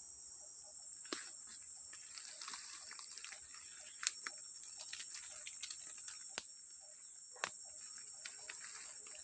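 Tropical forest insects, crickets or cicadas, keeping up a steady high-pitched buzz, with scattered sharp snaps and crackles, the two loudest about four and seven and a half seconds in.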